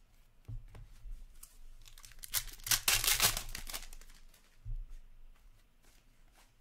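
A foil hockey-card pack being torn open and crinkled by hand, the loudest tearing about two and a half to three and a half seconds in, with light clicks of card handling around it.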